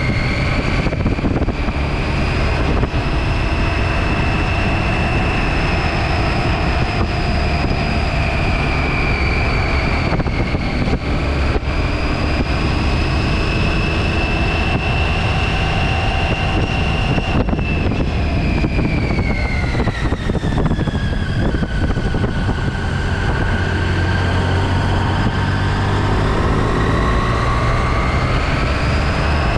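A 2017 Triumph Tiger XCx adventure motorcycle's three-cylinder engine running under way, with a steady whine that drops in pitch about two-thirds of the way through and climbs again near the end. The engine is heard over a steady rush of wind and tyre noise.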